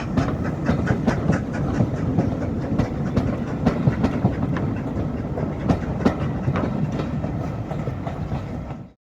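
Train running along the track, wheels clicking rapidly over the rail joints under a steady rumble, cutting off abruptly near the end.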